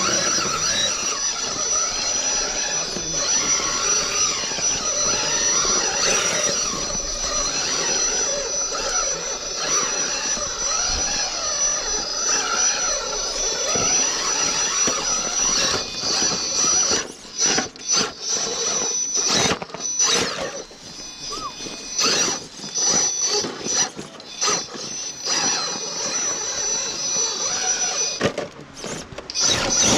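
Electric drive motor and gears of a 1:10 scale RC rock crawler whining as it crawls over rocks, the pitch wavering with the throttle over a steady high tone. From about halfway, the whine comes in short stop-start bursts.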